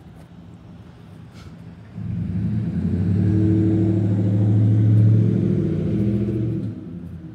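A motor vehicle's engine running, loud from about two seconds in with a steady low drone, then fading away near the end.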